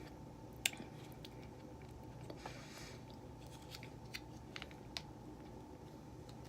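Quiet mouth noises of eating chunky applesauce: scattered wet clicks and smacks, the sharpest about half a second in, with a soft breath a couple of seconds later, over a faint steady hum.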